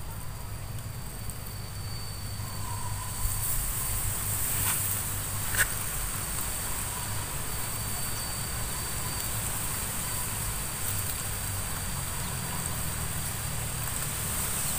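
Insects droning steadily in a high, even buzz, stronger from about three seconds in, over a low rumble; one sharp click about halfway through.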